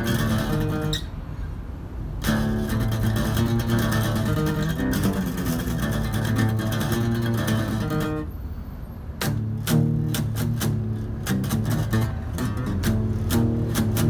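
Acoustic guitar strumming a fast, dense riff, with a brief drop about a second in; from about nine seconds in it turns to short, chopped chord stabs with silences between them.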